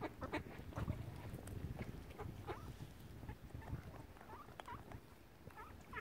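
Water birds calling: a scattering of short, squeaky, pitch-bending calls over a low rumble.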